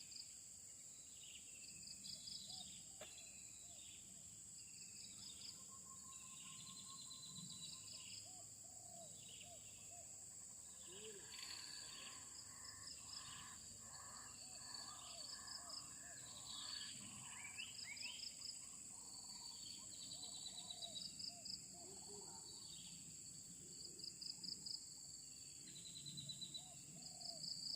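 Faint forest ambience: a steady high insect drone with many birds calling in short repeated chirps and phrases, busier from about halfway through.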